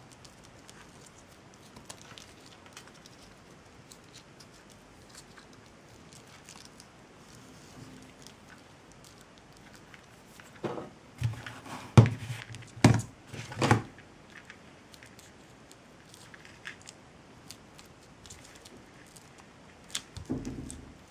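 Handling noise of craft work on a table: faint scattered clicks and rustles of tools and materials, with a cluster of louder knocks just past the middle and one more near the end.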